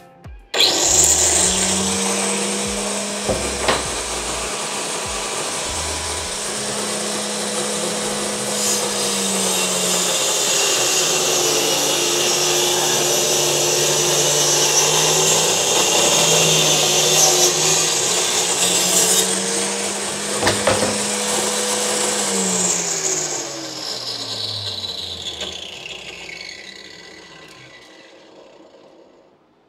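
Endico SLOK30 1350 W circular saw, mounted upside down as a table saw, switched on and cutting a board. It starts suddenly, its whine sags in pitch while the wood is fed through the blade, then recovers. After switch-off the motor winds down, the pitch falling away over several seconds.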